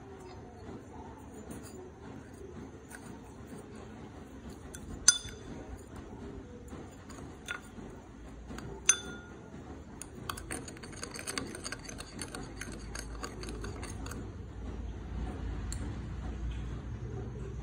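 A spoon stirring sauce in a ceramic bowl and clinking against its side: two sharp clinks about 5 and 9 seconds in, then a quick run of light clinks and scrapes.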